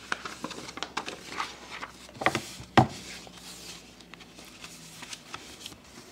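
Sheets of paper rustling as they are handled, with irregular sharp clicks and crackles. The two sharpest come between two and three seconds in, then the rustle dies down to a faint hiss.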